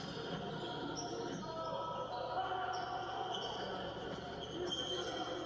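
Basketball game sound played through a TV's speaker: the ball dribbling and short, high sneaker squeaks on the hardwood court, many times over.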